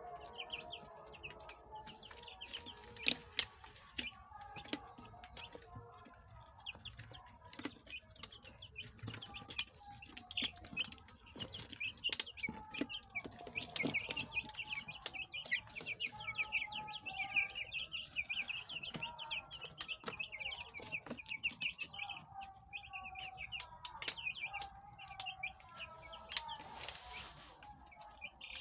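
A brood of young broiler chicks peeping nonstop, many short high chirps overlapping, busiest in the middle, with a few sharp taps among them.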